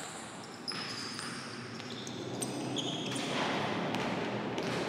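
Basketball dribbled on a hardwood gym floor while sneakers squeak several times in short high chirps, with the thuds and footfalls of players running.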